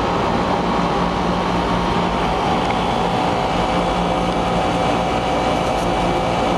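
Split air conditioner's outdoor unit running steadily, its compressor hum and condenser fan sounding together, while the system is being charged with R22 refrigerant.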